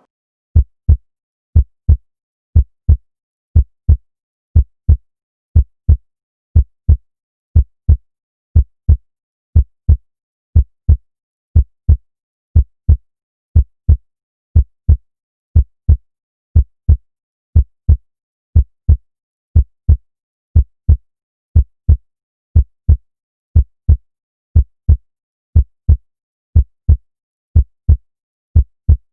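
Normal human heart sounds: a steady lub-dub, a little under one beat a second, each beat a pair of short dull thuds with silence between. The lub is the first heart sound, from closure of the mitral and tricuspid valves. The dub is the second heart sound, from closure of the aortic and pulmonary valves.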